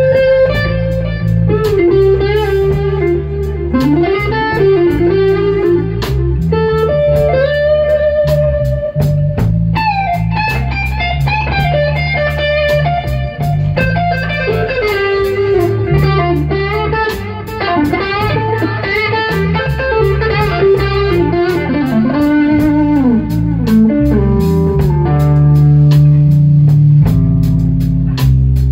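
Blues band playing an instrumental break: an electric guitar solo with bent, gliding notes over bass guitar and a steady drum beat.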